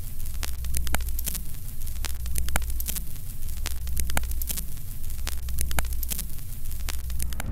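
Old-film countdown sound effect: a steady low hum under static hiss, with sharp pops and crackles one or two a second, like a worn film reel running through a projector.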